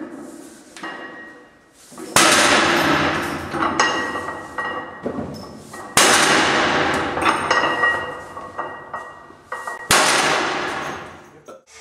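Loaded deadlift barbell's iron plates clanging onto the floor, three loud hits about four seconds apart, each ringing on for a few seconds.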